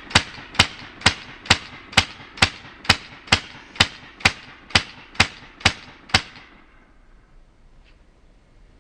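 A rapid, evenly spaced string of gunshots, about two a second, fourteen in all, which stops about six seconds in.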